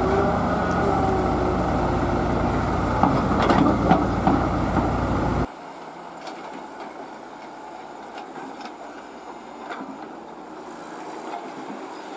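Heavy diesel excavator engine running steadily, with a few knocks and clanks of the working machine. About five and a half seconds in, the sound cuts off suddenly and a much quieter, steady machine noise with scattered clicks follows.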